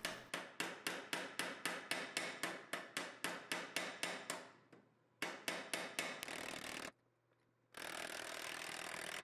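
Small ball-peen hammer making rapid light taps on 1/16-inch steel pins, about four or five taps a second, peening the pins over to rivet a knife's handle butt piece in place. The taps fade after about four seconds, pick up again briefly, then give way to two stretches of steady hiss.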